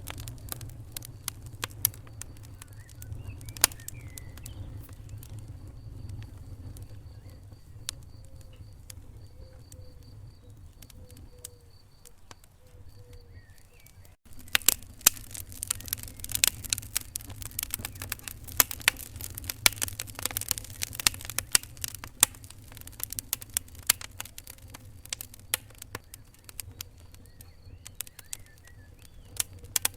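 Wood fire in a fireplace crackling, with sharp pops over a low steady rumble. The pops are sparse at first, then, after a brief dropout about halfway through, they come thick and fast.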